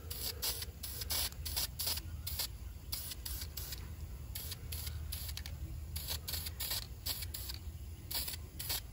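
Aerosol spray-paint can spraying in many short bursts of hiss, roughly two a second and irregular, as a steel bracket is turned and coated.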